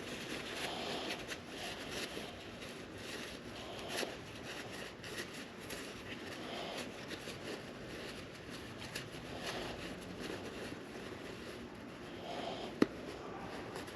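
Quiet handling and cleaning of motorcycle brake parts: soft rubbing and light knocks, with one sharp click near the end.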